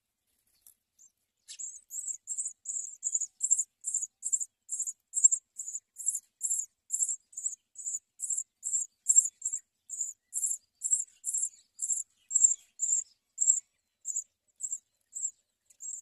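Songbird nestlings giving begging calls as a parent feeds them at the nest: short, high, thin chirps repeated about two to three times a second, starting a second and a half in and continuing without a break.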